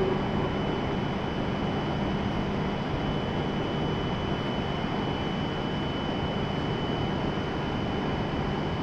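E7 series Shinkansen standing at the platform, its on-board equipment and ventilation running with a steady hum and a thin, high, even whine.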